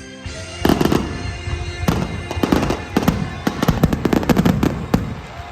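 Fireworks going off in a rapid barrage of sharp bangs and crackles, starting about half a second in and thinning out near the end.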